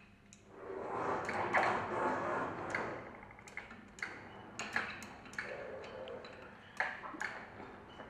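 Metal hand-tool work on a centrifugal pump's bearing housing as an Allen screw is undone: a stretch of fast rattling, then a run of sharp, irregular metal clicks and taps.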